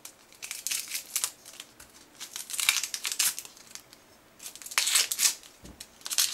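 Dry onion skin crackling and tearing as a kitchen knife peels it off an onion, in three short bursts of rustling with small clicks.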